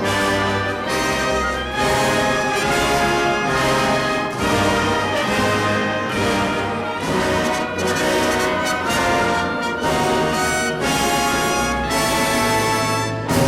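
Orchestral music with prominent brass, trombones and trumpets playing sustained chords in a dramatic soundtrack style.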